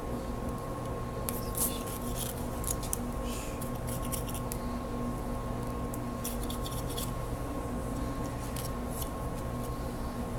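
Knife cutting and scraping through lamb in short strokes, in groups about a second in, near the middle and toward the end, over a steady low machine hum.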